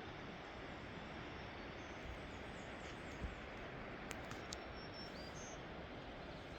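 Faint, steady rush of the Lehigh River, with a few faint high bird chirps and a couple of light clicks in the middle.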